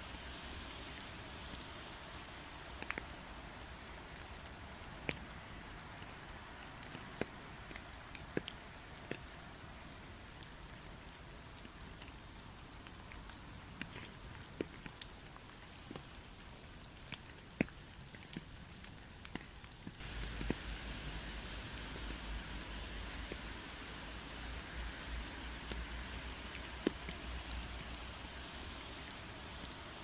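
Steady rain falling, with scattered sharper drips and drop hits over an even hiss. About twenty seconds in, the rain grows slightly louder and fuller, with a low rumble underneath.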